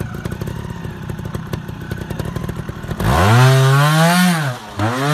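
Trials motorcycle engine ticking over with a rattly low beat, then revved hard twice from about three seconds in, its pitch rising and falling each time, the first rev longer than the second.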